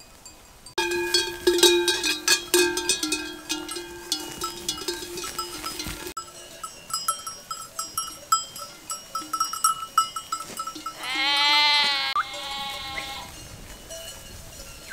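Bells on a grazing flock of sheep and goats clanking and ringing, starting suddenly about a second in and loudest for the next few seconds, then fainter. About eleven seconds in come two bleats, a longer one and a shorter one.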